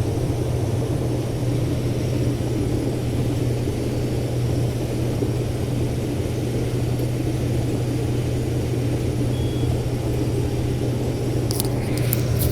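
Case 2388 combine's diesel engine and threshing machinery running under load while harvesting corn, heard from inside the cab as a steady drone with a strong low hum. A few faint clicks near the end.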